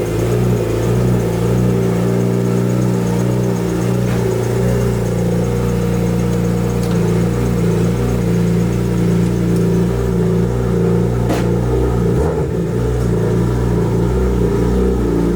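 A car engine running steadily, a constant low drone.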